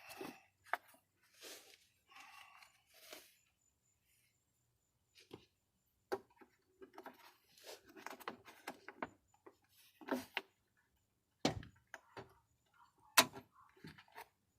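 Hands working at the door handle assembly inside a car door with its trim panel off: scattered clicks, rattles and short rustles, with two sharp knocks near the end, the second the loudest.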